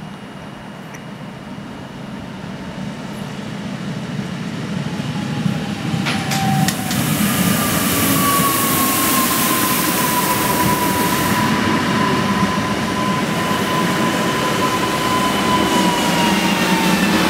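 Newag Impuls electric multiple unit approaching and passing on the adjacent track: its running noise swells over several seconds, with a few sharp clicks from the wheels about six seconds in, then a loud rushing hiss and a steady whine that drifts slowly lower in pitch as it goes by.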